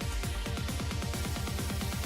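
Electronic dance music with a fast, steady kick-drum beat.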